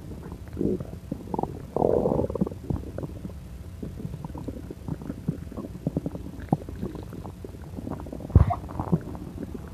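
Stomach gurgling and bubbling as pancakes eaten too quickly are digested: irregular gurgles and small pops, a louder bubbly stretch about two seconds in, and one sharp thump about eight and a half seconds in.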